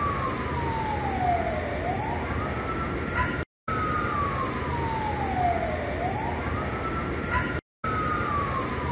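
A siren wailing over a steady rushing background noise. Its pitch falls slowly for about two seconds, then sweeps quickly back up, a cycle that repeats about every four seconds. The sound cuts out briefly twice.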